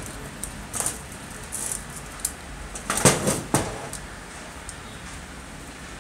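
Handling noises from an old circular saw's metal housing being turned over on a workbench: a few scattered knocks and a scrape, then a cluster of knocks about three seconds in as it is set down.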